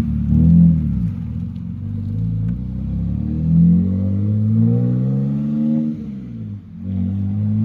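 A car engine, most likely the Nissan S13's swapped-in VQ37 3.7-litre V6, pulling up through the revs with its pitch rising for several seconds. Near the end the revs drop sharply, as at a gear change, then start climbing again.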